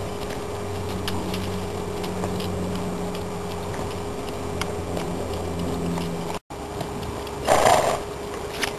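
Faint hoofbeats and scattered ticks from a palomino Morgan mare cantering on loose dirt, over a steady low hum. The sound cuts out briefly past the middle, and a short burst of noise comes near the end.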